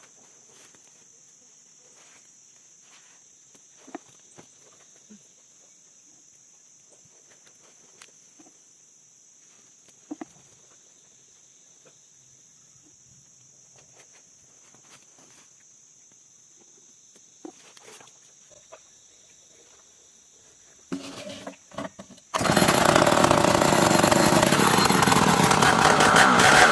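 Steady high-pitched buzz of forest insects with scattered small clicks, then a few knocks about 21 seconds in and an old chainsaw engine starts suddenly and runs loudly.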